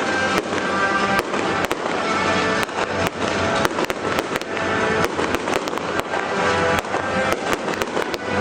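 Fireworks going off in quick succession, sharp bangs and crackling several times a second, with music playing.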